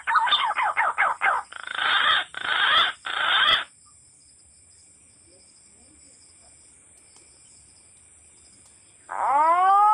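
Loud animal calls: fast, repeated falling-pitch cries, then three harsh noisy bursts that cut off suddenly about three and a half seconds in; after a few seconds of quiet, a call rising in pitch begins near the end.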